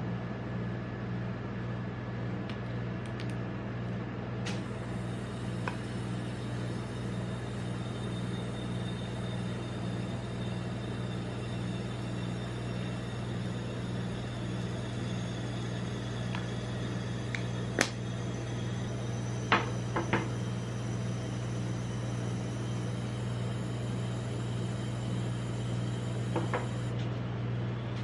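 Steady low hum of a rolled-ice-cream machine's refrigerated cold plate running, with a few sharp clicks around the middle and one near the end.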